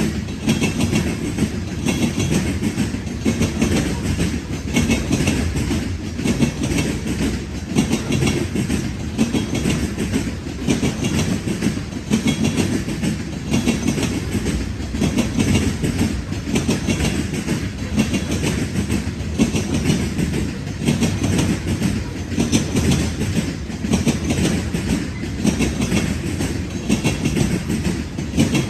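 Freight train cars rolling steadily past, with a low rumble and repeated clicking of wheels over rail joints.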